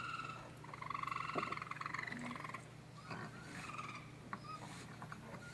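Baby raccoons calling: a buzzing, trilling churr that stops just after the start and comes again for about a second and a half, followed by fainter short chirps and squeaks.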